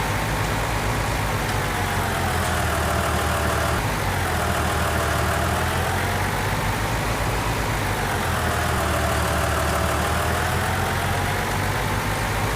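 Backhoe loader's diesel engine running steadily, with a whine that dips and climbs slowly every four to five seconds as it works.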